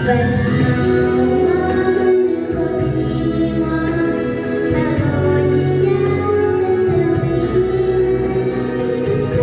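A young girl singing a song with long held notes over a recorded backing track with a steady beat.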